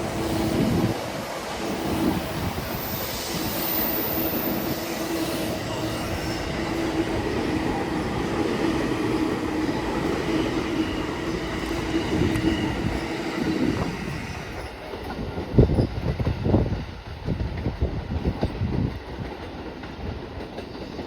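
Electric train running through a station, with a steady held tone over the rolling noise that stops about two-thirds of the way through, followed by irregular low thumps.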